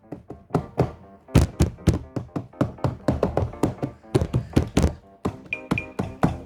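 A tune played with a table-bang knock sample: quick rhythmic thuds pitched up and down to form a melody. Short high beeps join in near the end.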